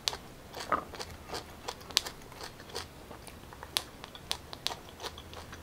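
Biting and chewing fresh raw pineapple: irregular crisp crunching clicks, several a second, the sharpest about two seconds in.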